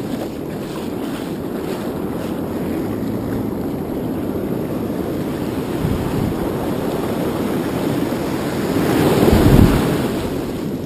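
Wind buffeting the action camera's microphone over the rush of breaking surf, a steady rumbling noise that swells louder about nine seconds in.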